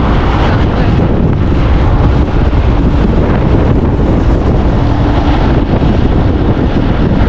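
Heavy wind buffeting the microphone of a moving vehicle, a steady loud rumble with road and engine noise underneath.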